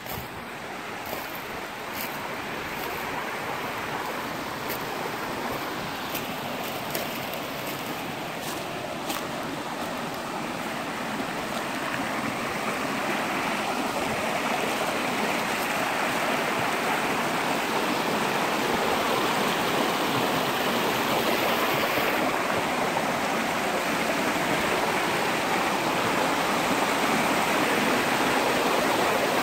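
Small rocky mountain stream splashing and rushing over little cascades, growing louder over the first half and then steady.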